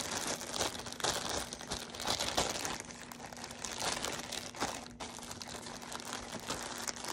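Clear plastic packaging bag crinkling irregularly as hands handle and pull at it around a plush toy.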